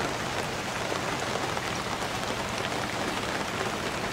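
Steady rain falling on open water, an even hiss of many small drops.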